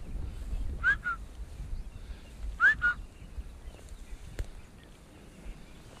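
Two short whistled notes about two seconds apart, each a quick upward slide followed by a brief lower held note, over low wind rumble on the microphone; a single sharp click follows a little later.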